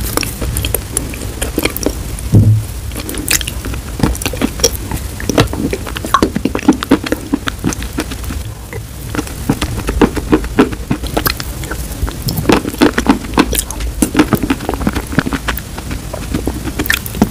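Crunching and chewing of chalk coated in wet chalk paste: a dense run of sharp cracks and crackles that keeps going throughout.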